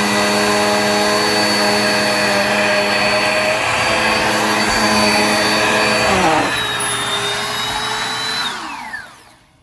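Black + Decker Air Swivel upright vacuum running steadily. About six seconds in its pitch drops as the brushroll catches on the edge of a rug, straining and burning the belt. Near the end the motor winds down and stops.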